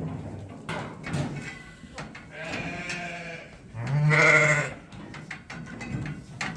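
Sheep bleating twice, the second call the louder, about four seconds in, with scattered knocks around them.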